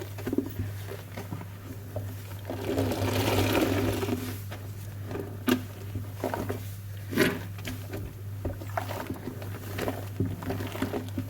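A sponge soaked in dishwashing detergent and Cif cream cleaner is squeezed by hand, giving wet squelching and crackling suds. There is a longer, louder squeeze a few seconds in and sharp squishes later on, over a steady low hum.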